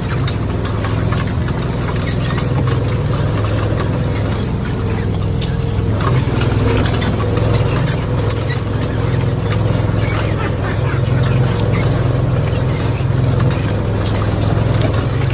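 Steady low motor drone on a squid-fishing boat, from its engine and the automatic squid jigger turning its red reels, with scattered light clicks and splashes.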